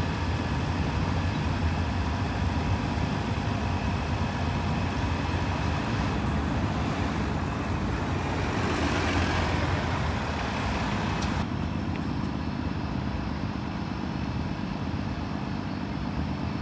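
City transit bus engine running as the bus drives by close at hand, a steady low rumble with traffic noise. About eleven seconds in, the sound changes abruptly to a quieter, duller rumble.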